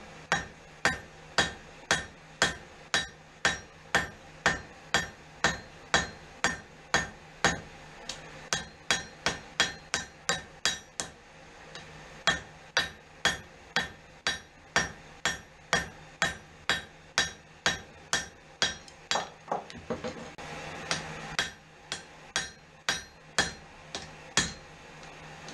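Hand hammer blows on hot steel over an anvil, a ringing strike about twice a second, quickening for a few seconds, with two short pauses: the steel bar being drawn down into a small knife blank.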